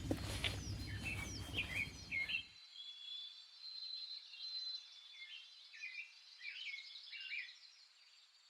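Birds calling in short, repeated hooked chirps over a thin, steady high tone. For the first couple of seconds a louder clattering, rumbling noise covers them, then cuts off abruptly.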